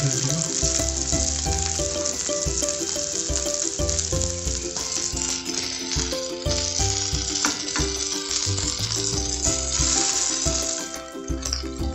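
Batter-coated chicken pieces sizzling as they fry in hot oil in a pan, the sizzle dying down near the end. Background music plays along with it.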